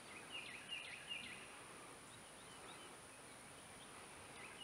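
Quiet pondside outdoor ambience with birds chirping: a quick run of short high notes in the first second or so, then fainter scattered calls, over a faint steady high hiss.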